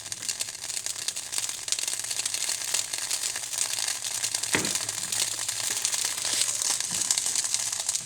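Cuisinart drip coffee maker heating its water to brew, a steady crackling, sizzling hiss of the water starting to boil, with one soft knock about halfway through.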